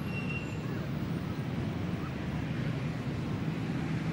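Steady low outdoor rumble, with a short high chirp just after the start.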